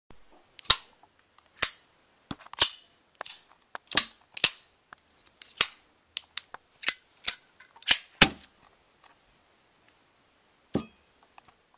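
Folding pocket knife's blade snapping open and shut: a string of sharp metallic clicks, about one a second, then a pause and one last click near the end.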